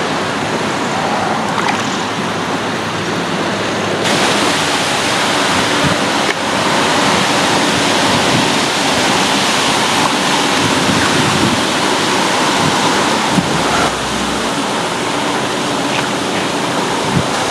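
Steady rushing water, a loud even hiss that gets brighter about four seconds in, with a few faint clicks.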